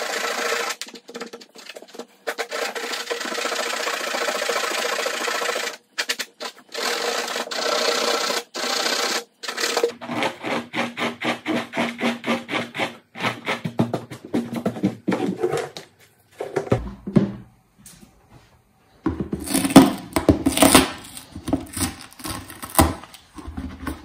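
Hand abrading of a melted-plastic weld seam on a polypropylene bucket: steady scratchy rubbing, then quick even back-and-forth strokes. In the last few seconds this gives way to irregular louder knocks and bumps from handling the bucket.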